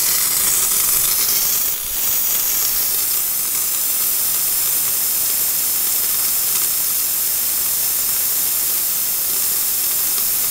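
Bathroom sink faucet open, hissing steadily as air and water spit out of it, with a brief dip about two seconds in: trapped air being purged from the hot water line.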